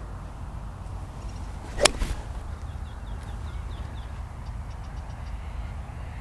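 A golf club swung through and striking the ball: one sharp crack about two seconds in. Faint bird chirps follow over a low outdoor rumble.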